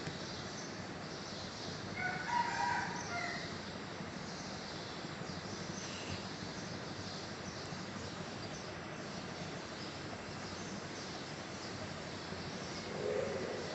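A rooster crowing once, about two seconds in: a short call of several rising and falling notes over a steady background hiss. A brief, lower sound follows near the end.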